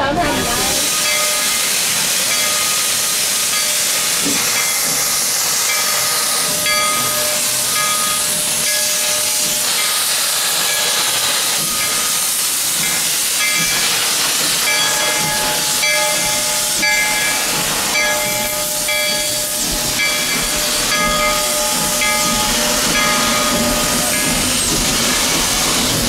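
Narrow-gauge steam locomotive, Rio Grande No. 340, hissing loudly and steadily as it vents clouds of steam.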